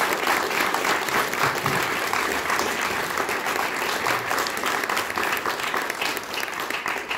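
Audience applauding, many hands clapping together; the clapping thins out near the end.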